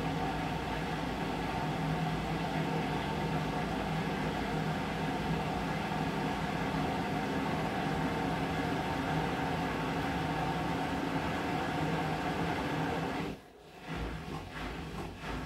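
Whirlpool FreshCare+ front-loading washing machine running with a steady motor hum. The hum cuts off suddenly near the end, leaving quieter, uneven knocks.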